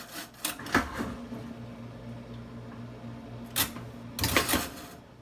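GE dishwasher door and latch clicking and clunking as the door is shut and locked, a few sharp clicks about a second in and a cluster near the end, with a steady low hum in between.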